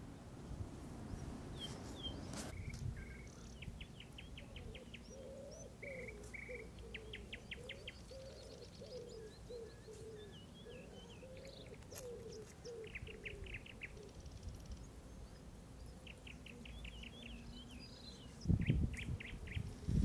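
Wild birds singing: repeated short, rapid trills and scattered chirps, with a lower wavering call underneath through the middle. A loud low rumble starts near the end.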